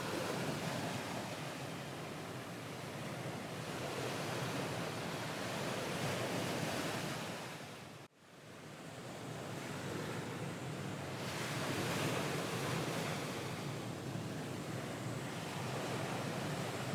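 Ocean waves breaking and washing in, a steady surf that swells and eases. About eight seconds in the sound cuts out abruptly for an instant and then fades back in.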